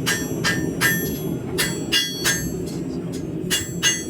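Hand hammer striking a hot 1075/1080 high-carbon steel knife blade on an anvil, about eight ringing blows in quick groups of two or three, as the blade is forged to shape. A steady low rumble runs underneath.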